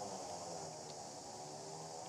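Steady high-pitched drone of insects buzzing in the trees, with a low, even hum beneath it.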